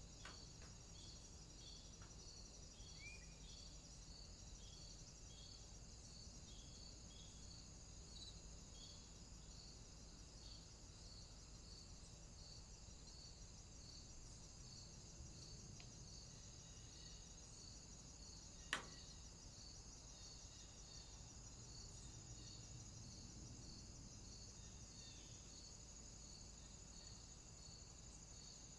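Faint insect chirping: a regular high chirp about one and a half times a second over a continuous high buzz, with a single sharp click about two-thirds of the way through.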